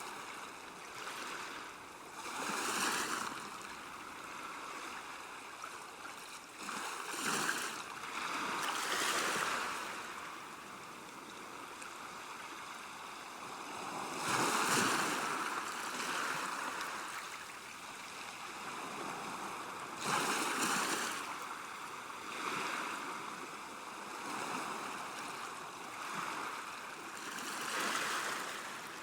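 River water washing against a bank: a steady rush that swells louder every few seconds, in irregular surges.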